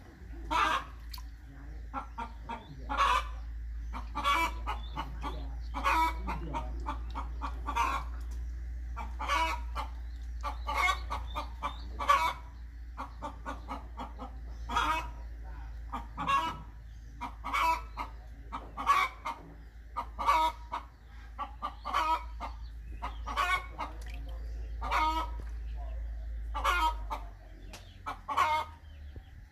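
Chickens clucking over and over, short calls every second or two, over a steady low hum that stops near the end.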